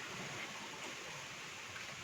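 Low steady hiss of room tone with a couple of very faint ticks and no distinct mechanical event.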